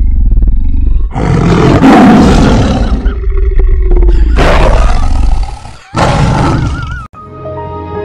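A house cat vocalising loudly with its mouth wide open in three long, noisy, hissy bursts over a low rumble while being petted. It cuts off suddenly near the end, and soft music follows.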